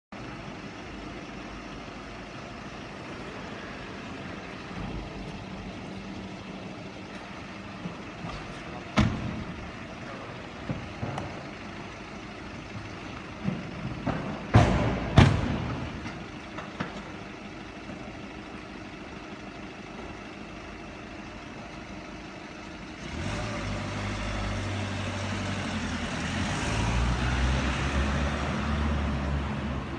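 A sharp thump about nine seconds in, then two car doors of a police Seat Leon slammed shut in quick succession around fifteen seconds in; near the end the car's engine runs louder as it pulls away.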